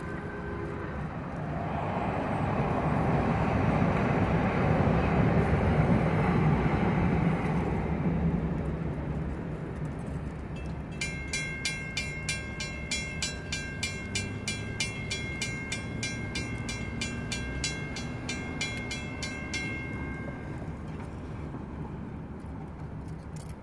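A DART light rail train passes the crossing, its noise swelling to a peak a few seconds in and then fading. After that the crossing's warning bell dings rapidly and evenly as the gate arms rise, and it stops a few seconds before the end.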